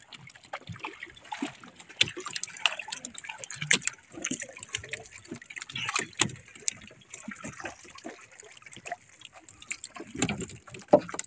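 Sea water lapping and splashing against a small outrigger boat, with irregular sharp clicks and knocks from the handline and boat; a hooked fish splashes at the surface as it is hauled up beside the outrigger float.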